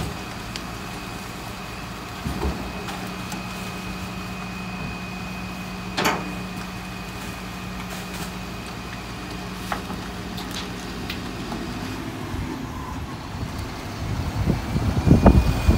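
Rear-loader garbage truck idling steadily, with a few sharp knocks as rubbish is thrown into the hopper, the strongest about six seconds in. Near the end a single-deck bus drives past close by, and its engine rumbling becomes the loudest sound.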